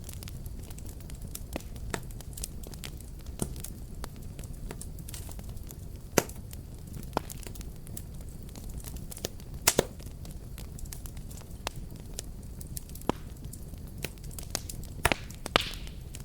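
Wood fire burning in a fireplace: a steady low rumble of flames with irregular crackles and sharp pops, a few louder snaps scattered through.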